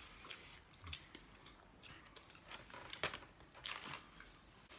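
People biting into and chewing burgers, with scattered short crackles and clicks; the loudest come about three seconds in and just before four seconds.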